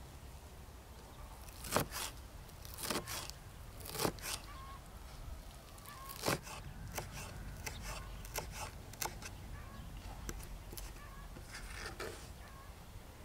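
Kitchen knife chopping fresh herbs on a wooden cutting board: irregular sharp knocks in small clusters, a few strokes at a time with pauses between, lighter taps in the second half.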